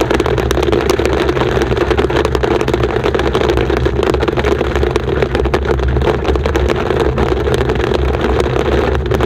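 Steady road and engine noise heard inside a car's cabin, with a dense run of sharp ticks from hail striking the windshield and roof.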